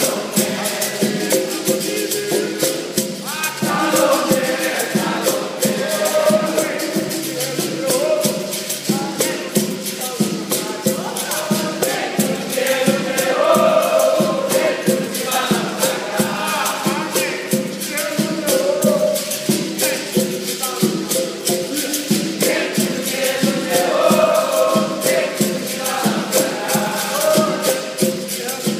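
Capoeira Angola roda music: berimbaus with shaken rattles and hand percussion keeping a steady, fast rhythm, with singing over it.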